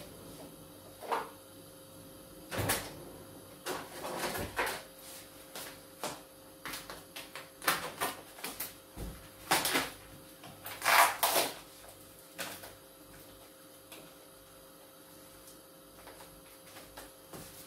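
Irregular knocks, clinks and clatter of cookware and utensils being handled on a kitchen counter and stovetop, the loudest clatter about two-thirds of the way through. After that only a faint steady hum remains.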